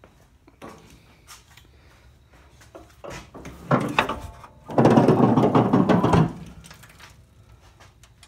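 A metallic clunk, then about a second and a half of loud scraping and creaking as the hood of a 1984 GMC 2500 pickup is opened and raised.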